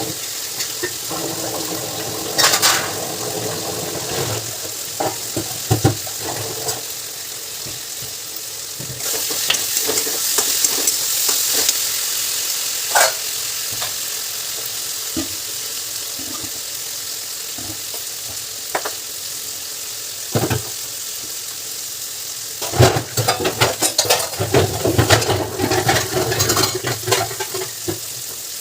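Vegetables sizzling as they fry in a pan, with a spatula stirring and scraping against the pan in bursts near the start and again near the end. The sizzle swells louder for a few seconds in the middle.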